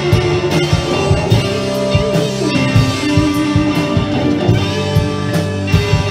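Live rock band playing an instrumental passage: electric guitars holding and moving between notes over a steady drum-kit beat.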